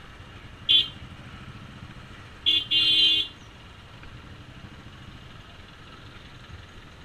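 Vehicle horn tooting three times, a short toot just under a second in, then a short one and a longer one at about two and a half to three seconds, over a low steady engine hum.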